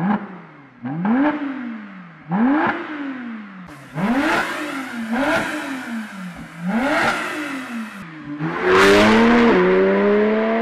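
Porsche 991 Turbo S twin-turbo flat-six with a Kline Inconel exhaust, blipped about six times while standing, each rev rising and falling away. In the last couple of seconds it accelerates hard, its note climbing, dropping once at an upshift and climbing again.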